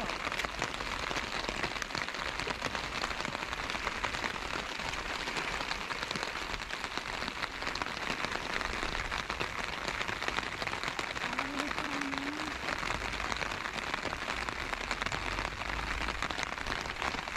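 Heavy rain falling steadily onto the harbour water and concrete quay: a dense, even hiss of countless drops that holds at one level throughout.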